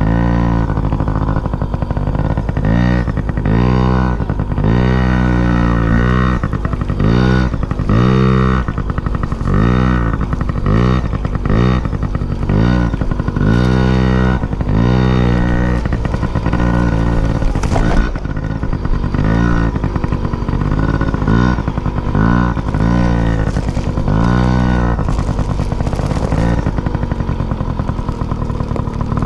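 A vehicle engine revving up and falling back over and over, its pitch rising and dropping roughly once a second, with a sharp knock about eighteen seconds in.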